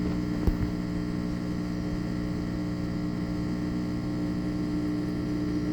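Washing machine with a newly replaced drain pump running a rinse-and-spin cycle: a steady mechanical hum with a single tick about half a second in. The hum is the sign that the pump is now working and moving the water.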